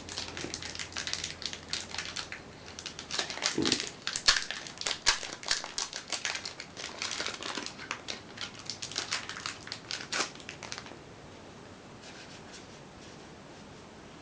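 Foil Magic: The Gathering booster pack wrapper crinkling as it is torn open and the cards inside are handled, a dense run of rustles and clicks that stops about eleven seconds in.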